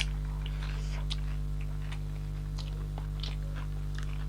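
Mouth sounds of people chewing a chicken dinner: scattered short, wet clicks and smacks, over a steady low hum.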